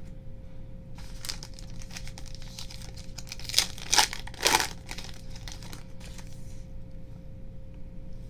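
Foil baseball card pack wrapper being torn open and crinkled by hand, with the loudest rips about three and a half to five seconds in; the crinkling dies down near the end as the cards come out.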